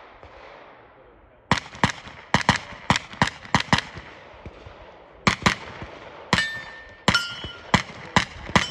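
Rapid gunshots: a fast string of about nine shots starting about a second and a half in, then after a pause a slower run of single shots. Several of the later shots are followed by a ringing tone of struck steel targets.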